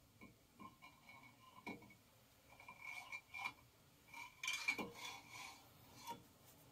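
Metal exhaust riser clinking and scraping against the manifold and its studs as it is slid into place on a marine small-block Chevy: a scatter of light metallic taps, some with a brief ring, the loudest cluster about four and a half seconds in.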